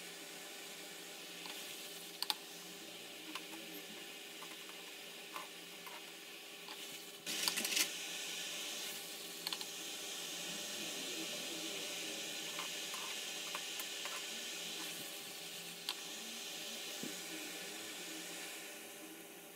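Cubes of shakarpara dough deep-frying in hot oil in a pan: a steady sizzle with scattered crackles and pops, and a short burst of louder crackling a little past seven seconds in.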